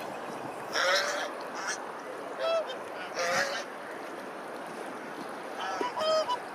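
Geese honking: a handful of short, harsh calls, some in quick pairs, over a steady background hiss.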